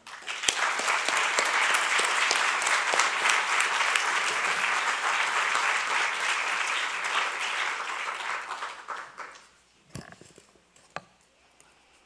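Audience applauding, dense clapping that fades out about nine seconds in. Two short knocks follow.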